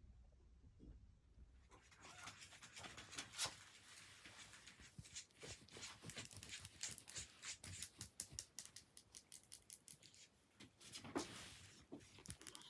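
Soft scratching and rustling made of many quick, irregular ticks: kittens' claws and paws catching on a fleece blanket as they move about.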